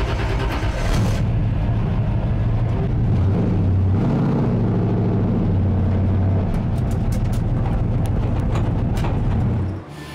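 Stock car's V8 engine running, its low note shifting a little in pitch; the sound cuts off suddenly near the end.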